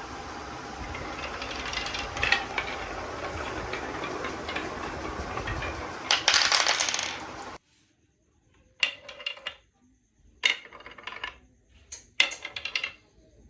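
Marbles rolling and clattering through a marble run: a steady rolling rattle with clicks that cuts off suddenly about seven and a half seconds in. Three short bursts of clacking follow as marbles drop and knock together.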